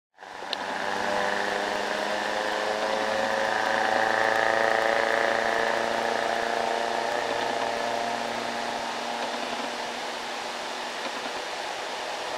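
Steady hum of a heavy vehicle's engine, growing louder to a peak about four seconds in and then slowly fading, over a constant background rush. A short click about half a second in.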